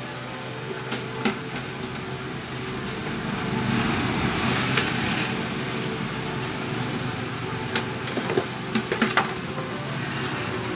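Handling noise from a realme neckband earphone and its packaging: scattered sharp clicks and taps of plastic, with a rustle around the middle, over a steady background hum.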